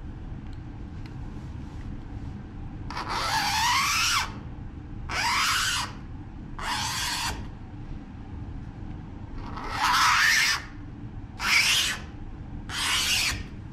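Plexiglass sheet being scored with a small plastic-scoring tool drawn along a steel straightedge: six rasping strokes, each about half a second to a second long, some with a squeal that rises in pitch.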